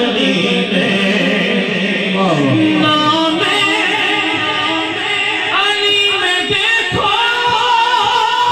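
Manqabat, an Urdu devotional song in praise of Ali, sung without instruments. The singing holds long, ornamented notes and slides down in pitch about two seconds in.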